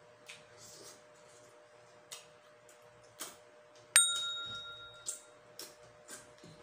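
A single bell-like ding sound effect about four seconds in, ringing on several high tones and fading over about a second, marking the balut count. Around it are small wet clicks and smacks of chewing and eating.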